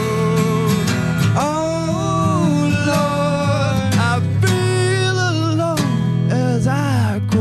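Acoustic guitar playing chords under a man singing long held notes with a slight waver, several separate sung phrases.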